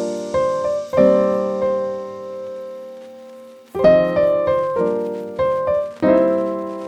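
Background piano music: slow chords and notes struck in clusters, each left to ring and fade.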